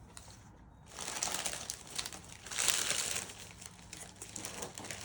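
Foil booster-pack wrappers being handled and crinkling on and off, loudest about two and a half to three seconds in.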